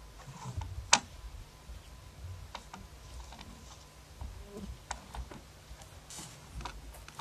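Scattered light clicks and knocks, irregular, with one sharp click about a second in, over a low rumble.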